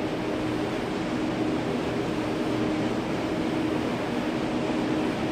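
Steady mechanical hum and running noise of fish-processing plant machinery, with a constant low droning tone throughout.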